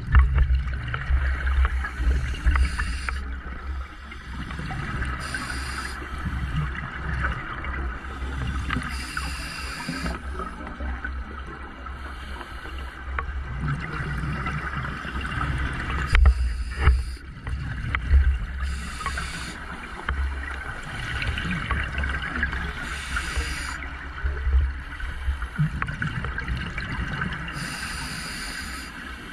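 Underwater sound of a scuba diver breathing on a regulator, heard through a camera housing: hissing bursts of exhaled bubbles every few seconds over a steady low rumble and crackle of water.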